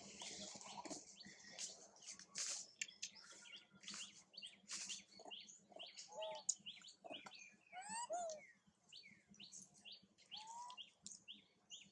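Birds chirping, a busy run of short, quick high calls, with a few lower swooping notes in between.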